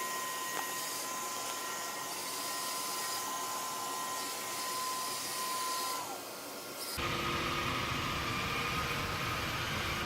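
Hoover Rogue 970 robot vacuum running: a steady high motor whine over a hiss of suction. About six seconds in the whine slides down in pitch, and a second later the sound switches abruptly to a different, lower hum with more rumble.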